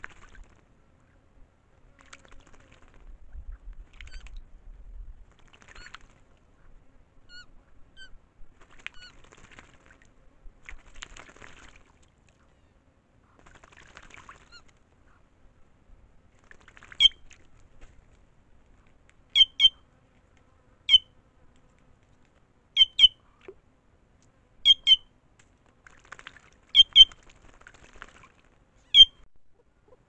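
Jays bathing in a shallow water hole: faint splashing and fluttering through the first half. Then, from just past halfway, seven loud, sharp bird calls, most of them a quick double note, come about every two seconds.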